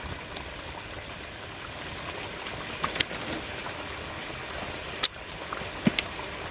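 Chicken frying in a cooking pot over a high flame: a steady sizzling hiss, with a few sharp clicks in the middle.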